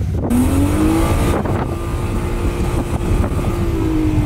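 BMW E36 engine revving hard while the car drifts on snow: the note climbs in the first second, holds high, and eases off near the end.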